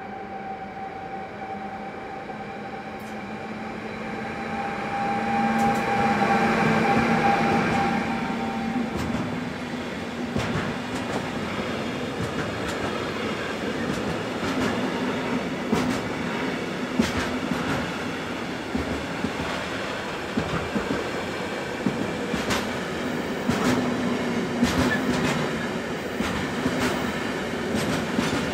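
Electric train passing through the station: a steady motor whine grows loud over the first eight seconds and fades, then the cars roll by with many irregular clicks over the rails.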